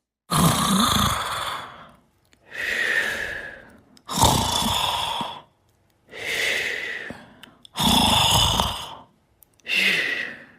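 A sleeper snoring in slow, regular breaths: three rough snoring inhales, each followed by a long, airy exhale, one full breath about every three and a half seconds.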